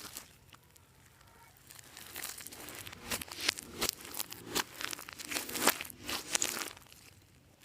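Clear slime being worked by hand, giving off a run of irregular sticky crackles and pops. It starts after a quiet second and a half and stops about seven seconds in.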